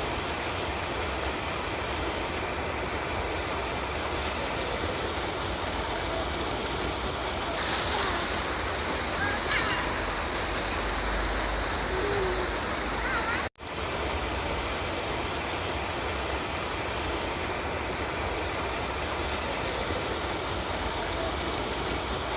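River water rushing steadily, an even, continuous flow. It cuts out for an instant about halfway through, then resumes.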